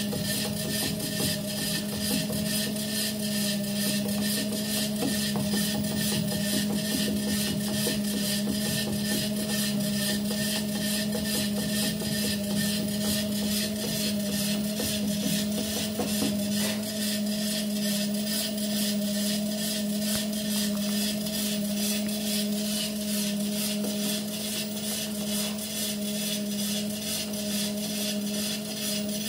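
Electric treadmill running: a steady motor hum with a fast, even ticking from the moving belt and rollers.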